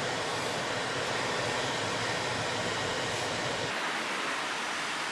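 Steady car-cabin noise while driving slowly: a low engine-and-tyre rumble under an even, fan-like hiss. The low rumble drops away about three and a half seconds in, leaving the hiss.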